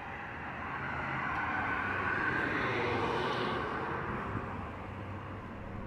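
A vehicle passing by, a rushing noise that swells to a peak about halfway through and then fades away.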